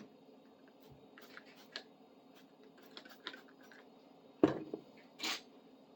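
Handling noise from an old wrench being wiped clean with a rag: small clicks and rustles, a sharp knock about four and a half seconds in, then a short rubbing swish.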